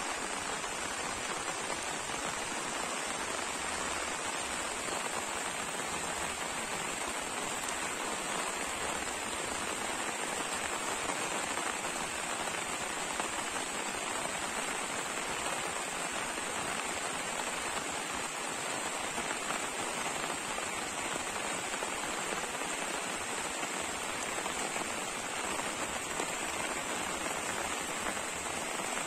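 Rain falling steadily: an even, unbroken hiss with no let-up.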